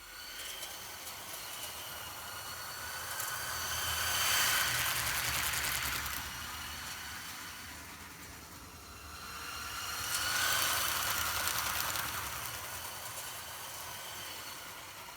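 LEGO model train running on plastic track, its two Power Functions L-motors and gearing whining and its wheels clicking over the rail joints. It grows louder and fades twice as it passes close by.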